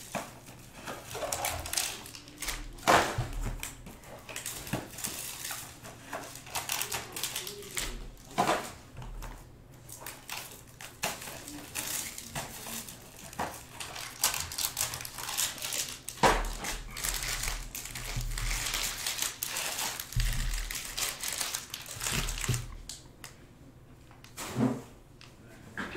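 Foil-wrapped boxes of trading cards being handled and moved on a table: crinkling foil, clicks and knocks, with dull thumps as boxes are set down, several times.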